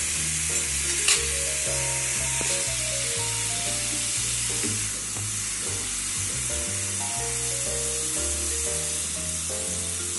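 Moong dal deep-frying in hot oil inside a metal mesh strainer in a kadai: a steady, even sizzle. Background music with held bass and melody notes plays under it.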